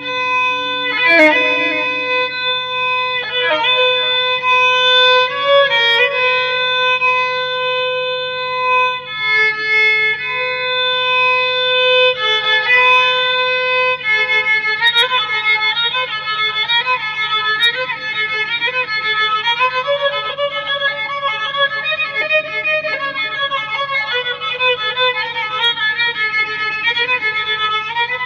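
Background music on solo violin: long held notes at first, then a quicker run of notes from about halfway through.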